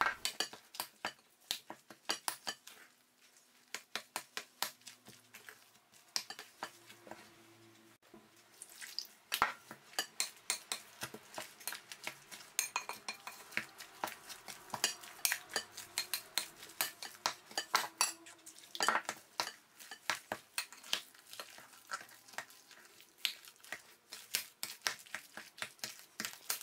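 Thick, wet çemen (fenugreek spice paste) being kneaded by hand in a glass bowl, a quick run of clicks and taps against the glass. The taps are sparse at first and come thick and fast from about a third of the way in.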